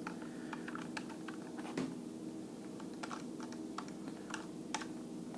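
Keys being pressed on a Bloody mechanical keyboard: irregular sharp clicks, a few a second.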